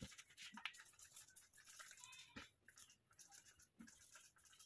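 Near silence, with faint scattered clicks and rustling.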